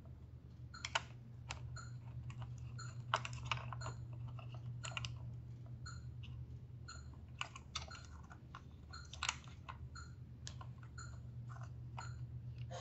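Small irregular clicks and taps of fingers handling the plastic housing, cables and grounding wire inside an opened syringe pump, over a steady low hum.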